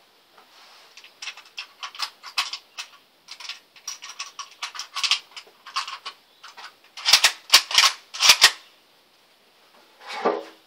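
Mosin-Nagant M44 carbine's action being worked by hand: a run of quick metallic clicks and clacks, then four louder, sharp clacks about two-thirds of the way through as the bolt is cycled. A softer brushing thud near the end as the rifle is settled onto the rest.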